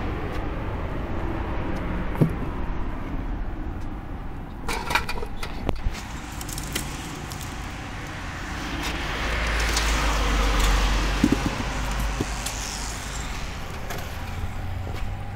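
Road traffic running steadily, with one vehicle swelling past about two-thirds of the way through. Plastic water bottles knock and clink against the polystyrene cooler and aluminium pot as they are moved between them, a few sharp clicks about a third of the way in.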